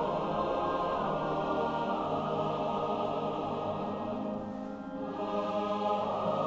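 Choir singing long held chords as film score, softening briefly about two-thirds of the way through, then swelling again.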